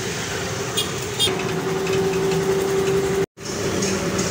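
Vehicle engine running and road noise heard from inside a moving vehicle's cabin, with a steady hum. The sound cuts out for a moment about three seconds in.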